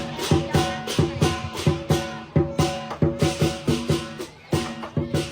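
Lion dance percussion ensemble: drum strokes with clashing cymbals and a ringing gong, beating a fast, steady rhythm of about four to five strokes a second.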